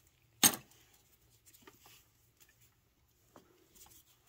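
A sharp click about half a second in, then a few faint clicks and taps: hand tools and parts being handled around the intake plenum of a truck's engine bay during disassembly.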